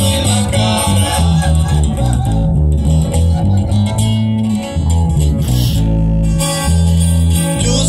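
Instrumental break of a live amplified guitar duo: guitars picking and strumming over a strong bass line, with no singing.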